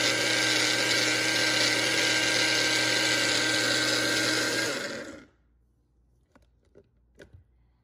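Mainstays 220-watt personal blender running steadily as it blends pomegranate, then spinning down and stopping about five seconds in as the button is let go. A few faint clicks follow.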